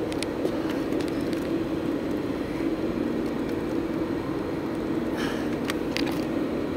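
A steady mechanical hum and drone, with a few faint clicks scattered through it.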